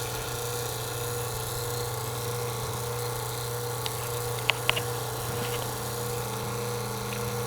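JB 7 CFM vacuum pump running steadily as it pulls a vacuum during an HVAC evacuation, with a few light clicks about four and a half seconds in.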